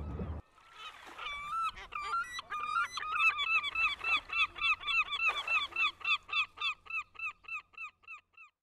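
Birds calling in a long run of short, arched, yelping calls: several overlap at first, then a single regular series of about three or four calls a second fades out near the end.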